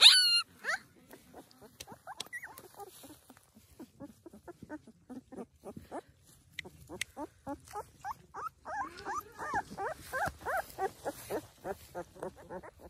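Young puppies crying in many short, high squeaks, with one loud yelp right at the start; the cries come thicker and faster in the second half.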